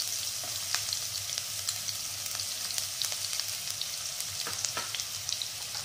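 Finely chopped onion and cumin seeds sizzling in hot oil in a nonstick wok: a steady hiss with many small crackles and pops.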